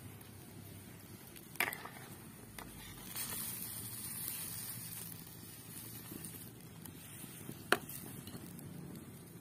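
Metal ladle stirring and scooping coconut-milk fish-head curry in an aluminium wok over a wood fire. It gives two sharp clinks against the pan, one about a second and a half in and one near the end, and a soft hiss between about three and five seconds in.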